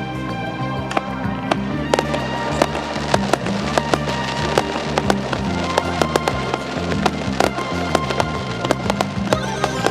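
Fireworks going off in quick succession: many sharp bangs and crackles, thickening after the first second or so, over music playing throughout.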